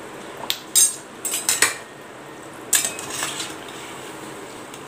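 Perforated steel skimmer clinking and scraping against a kadai several times, most in the first two seconds and again about three seconds in, as deep-fried biscuits are lifted out, over the steady sizzle of the frying oil.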